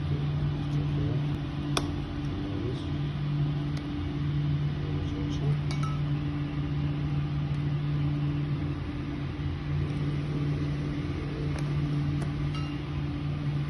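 A steady low hum, with a few light clicks as the plastic screw cap and fittings of an escape hood are handled and taken off.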